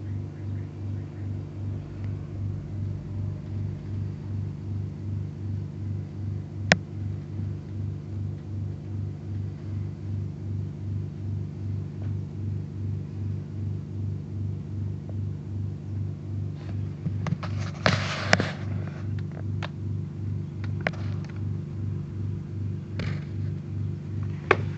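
Household refrigerator humming steadily with a regular pulsing throb, loud enough to drown out other sounds. A sharp click about a quarter of the way in, and a short rustle with several clicks about two thirds of the way in.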